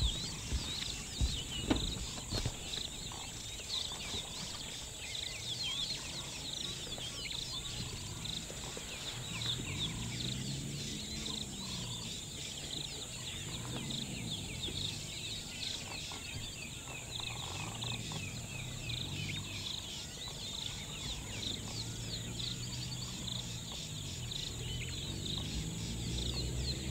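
Many birds chirping and calling at once, a dense steady chorus. From about ten seconds in, a low hum rises and falls in pitch underneath it.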